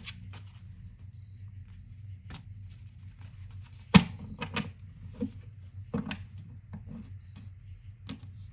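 Tarot cards handled on a table: a scattering of short taps and clicks, the loudest about four seconds in, over a steady low hum.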